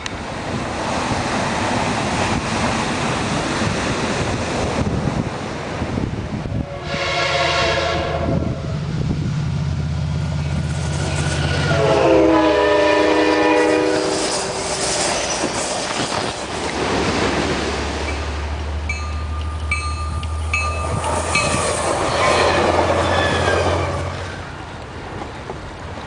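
Diesel passenger train passing at speed and sounding its five-chime K5LA air horn twice: a short chord about seven seconds in, then a longer, louder blast around twelve seconds in whose pitch drops as the train goes by. A low diesel engine drone and wheel clatter on the rails run under it.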